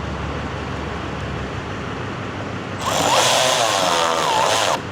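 Cordless power driver running in about three seconds in for roughly two seconds, its whine rising and falling in pitch as it drives screws into a truck door panel.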